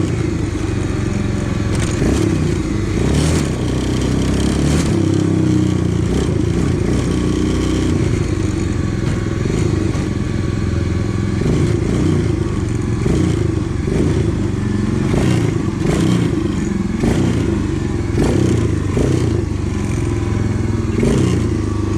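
Small pocket-bike engine running under way, its revs rising and falling throughout, with scattered clatter.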